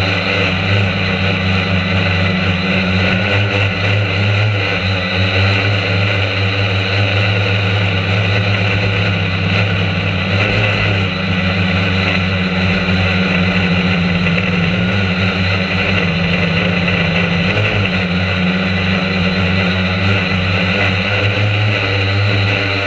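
Quadcopter drone's motors and propellers buzzing steadily, heard close up from the camera mounted on the drone itself, the pitch wavering slightly.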